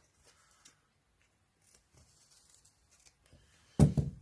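Faint scraping and rustling as vacuum cleaner parts clogged with hair are handled and picked at, then one loud thump near the end as a part is knocked or set down.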